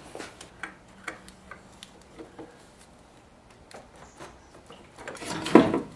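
Socket ratchet clicking in short irregular runs as a tight 14 mm alternator mounting bolt is worked loose, followed by a louder metallic clatter of tool and parts near the end.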